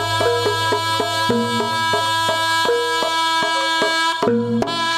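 Traditional Javanese jaranan music played live and amplified: rapid hand-drum strokes under a held, reedy melody line and a low sustained tone.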